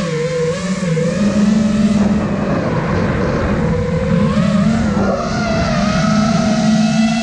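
Five-inch FPV quadcopter's brushless motors and propellers whining, the pitch wavering up and down with the throttle and climbing about five seconds in, over a rush of wind.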